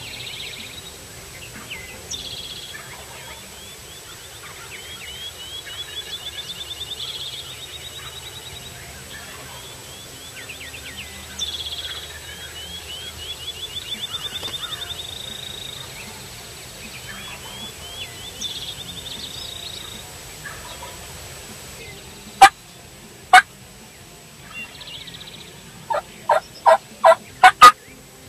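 Wild turkey gobblers gobbling, with a bird repeating a high, fast-rising song. Near the end come two very loud, sharp sounds about a second apart, then a quick run of five.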